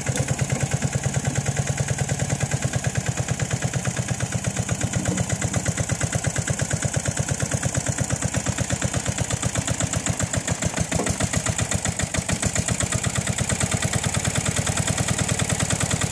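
Ruggerini diesel engine of a Toselli crawler loader running steadily, with an even, rapid chugging of about eight beats a second.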